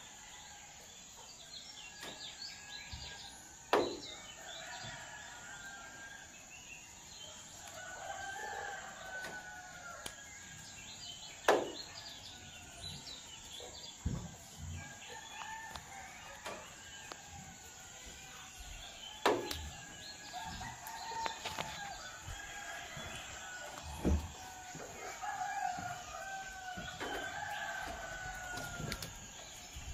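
Chickens calling and clucking, with a rooster crowing among them, and a few sharp clicks.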